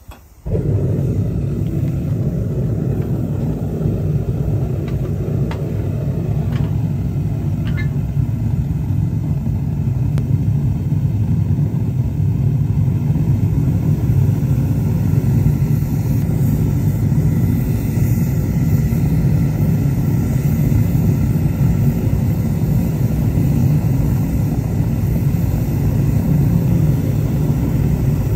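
Gas burner of a home-made foundry furnace lighting abruptly about half a second in, then running with a loud, steady, low rushing noise as the gas is fed at about 0.1 MPa.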